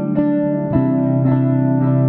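Instrumental background music with plucked guitar notes over sustained tones.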